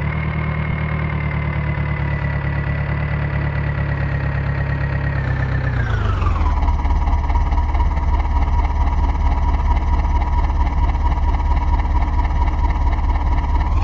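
Tractor diesel engine running steadily at high revs; about five to six seconds in the revs drop smoothly, and it then runs steadily at a lower speed.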